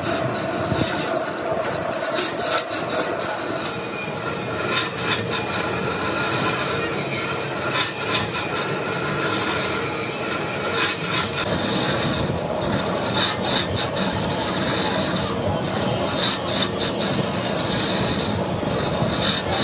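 Manual lathe turning the rim of a large spoked metal gear wheel, the cutting tool scraping steadily along the surface with a high metallic squeal that rises and falls, over the hum of the lathe's belt drive.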